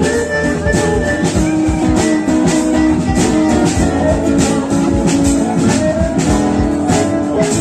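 Live band music, an instrumental passage led by guitar, with a steady beat.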